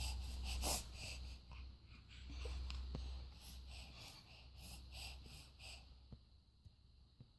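A baby with a flu-blocked, runny nose breathing wheezily and snuffling, fading out about six seconds in.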